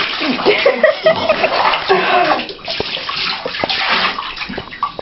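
Water splashing and sloshing in a full bathtub as a person moves about in it, with a few sharper splashes around the middle.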